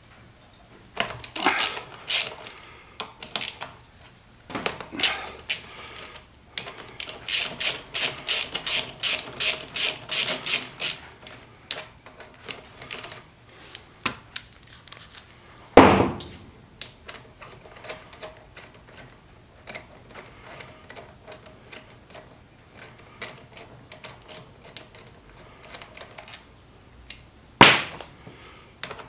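Hand socket ratchet clicking in runs while the bolts holding a motorcycle's front brake caliper are undone, with a longer, faster run of clicks a quarter of the way in. Two louder metallic knocks, one about halfway through and one near the end.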